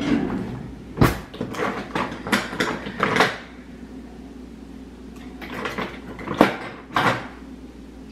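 Knocks, clicks and clatter of kitchen cupboards and their contents being handled, in two bursts: one about a second in, and one around six to seven seconds in.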